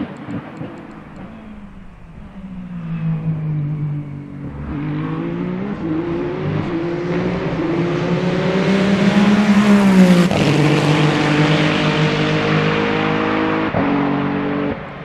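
Race car engine accelerating up through the gears as it approaches, its pitch climbing in repeated sweeps, then passing close by about ten seconds in, where it is loudest and the pitch drops sharply, and running on at a lower note.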